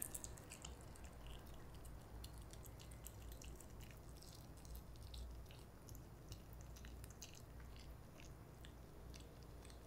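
A Pomeranian chewing a piece of raw cabbage leaf: faint, irregular crisp crunches and clicks of the leaf being bitten and chewed.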